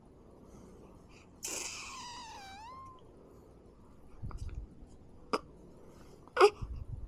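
A baby's short whimper, a drawn-out cry falling in pitch, about a second and a half in. Later come a few soft bumps and sharp clicks, the loudest click near the end.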